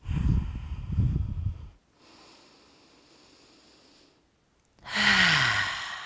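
A woman breathes close to the microphone. First comes a loud rushing breath for almost two seconds, then a pause, then a long audible exhale that falls in pitch as it fades.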